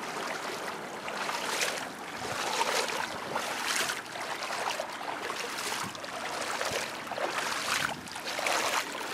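Rubber boots wading through floodwater, a sloshing splash about once a second with each step.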